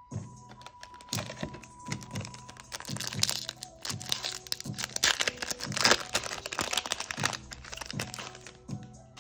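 Foil wrapper of a Pokémon card booster pack crinkling and tearing as it is pulled open by hand, loudest about five to six seconds in.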